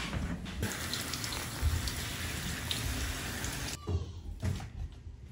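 Water running in a bathtub while a dog is being washed: a steady hiss that stops abruptly a little under four seconds in, followed by a few light knocks.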